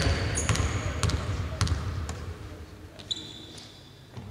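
A basketball is bounced on a hardwood court: several thudding bounces about twice a second, fading out after about two seconds. Short high sneaker squeaks come near the start and about three seconds in.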